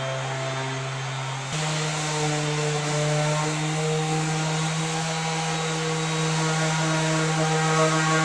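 Electric detail sander with a pointed pad running against wood: a steady motor hum under a layer of sanding hiss. About one and a half seconds in, the hum steps up in pitch and the hiss grows louder.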